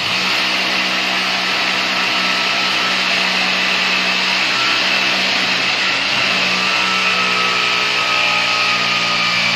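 Electric motor running steadily at constant speed: a loud whir with a steady low hum and a high whine.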